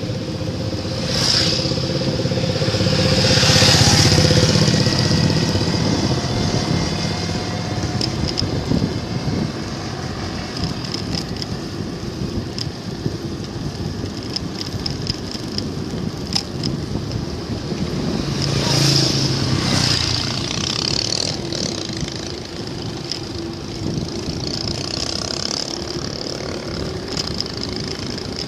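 Road traffic heard from a moving bicycle: steady road noise, with motor vehicles passing and swelling louder about four seconds in and again near twenty seconds.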